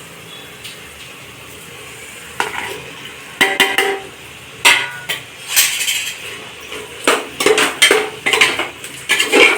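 Metal spoon stirring and scraping in a pot of onion-tomato biryani masala sautéing on the stove, clinking against the sides over a steady frying sizzle. The first couple of seconds are only the sizzle; the clinks and scrapes start after about two seconds and come quicker toward the end.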